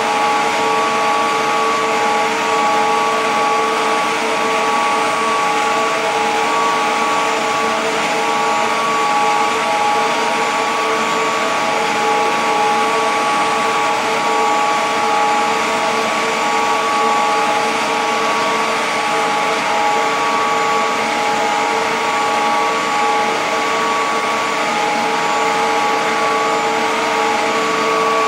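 Electric pump motors in a plant room running steadily: a constant hum and whine made of several fixed tones over a steady rushing noise, with no change in speed.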